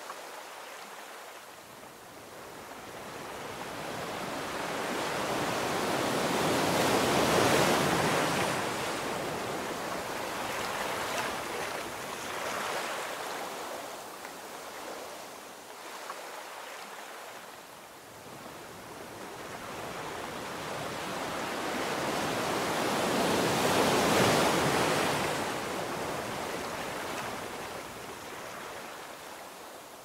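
Ocean waves washing onto a beach: a steady rush of surf that swells twice to a loud peak, once about a quarter of the way in and again near the end, easing off in between.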